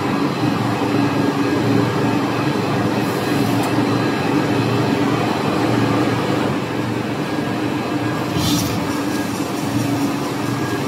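Cast stretch film production line running: a steady machine noise with a strong low hum, and a short hiss about eight and a half seconds in.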